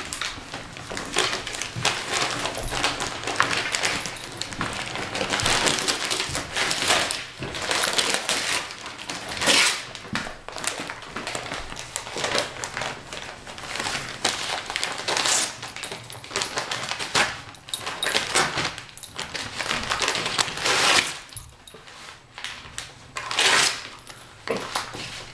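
A Bearded Collie ripping and crinkling shiny foil wrapping paper off a present with its teeth and paws. The crinkling and ripping comes in irregular loud snatches and eases off briefly about three quarters of the way through.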